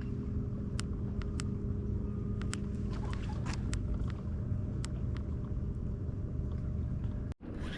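Steady low hum of a small motor aboard a fishing flats boat, with scattered sharp clicks over it.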